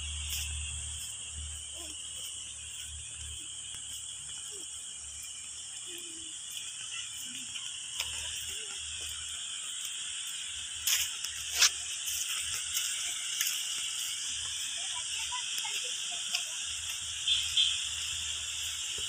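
Outdoor ambience on foot: a steady high hiss with an on-and-off low rumble, and a few sharp knocks from footsteps or the handheld phone around eleven seconds in.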